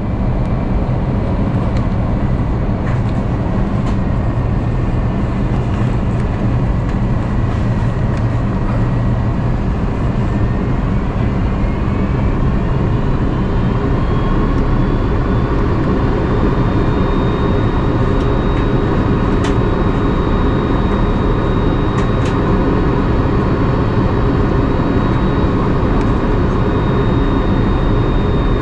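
Steady roar of airflow and engines heard inside the cabin of an Airbus A330-300 in flight, with a faint whine that rises in pitch partway through and then holds.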